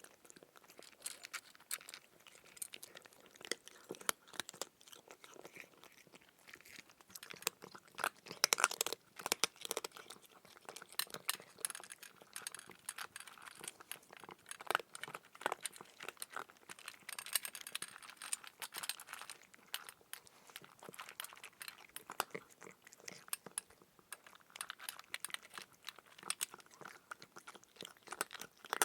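Crunchy chewing: a steady run of irregular crisp crunches and crackles, busiest about nine seconds in and again around seventeen to nineteen seconds.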